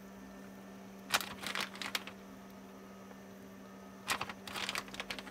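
Two bursts of crinkly rustling, each about a second long, as a hand digs into a plastic bag of shredded cheese for a pinch to sprinkle over the pan; a steady low hum underneath.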